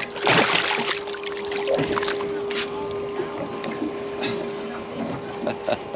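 A pink snapper splashing at the surface for about half a second as it is lifted out of the sea on the line. Under it runs a steady hum, and a few light knocks follow from handling on the boat.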